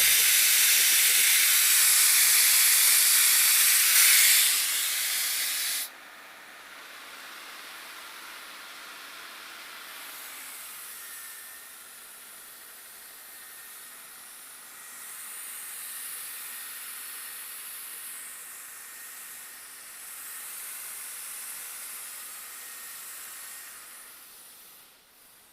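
Compressed air hissing out of a drilling rig's air compressor during its pressure test after a separator filter change. A loud rush for about six seconds cuts off suddenly, then a quieter hiss swells and dips and fades near the end.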